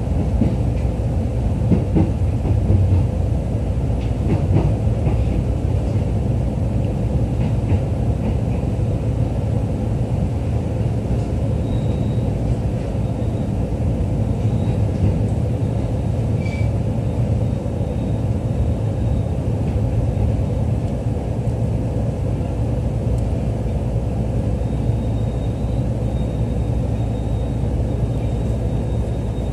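Interior running noise of a JR East E531 series electric train: a steady low rumble of the car on the rails, with a few clicks in the first several seconds. A faint thin high whine comes and goes in the second half.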